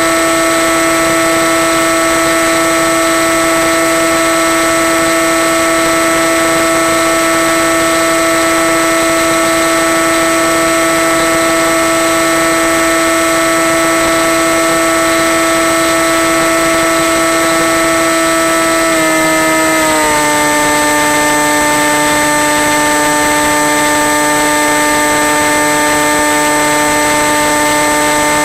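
Electric motor and propeller of a Skywalker FPV plane in cruise, a steady whine over constant hiss. The whine drops a little in pitch about two-thirds of the way through as the throttle is eased back.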